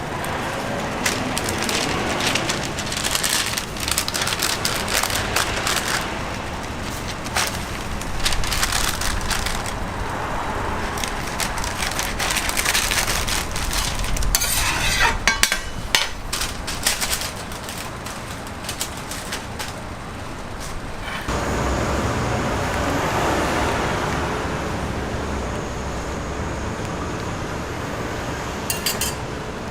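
Food-stall cooking sounds: repeated clatter and scraping of utensils and packaging over steady background noise, with the sound changing abruptly about two-thirds of the way through.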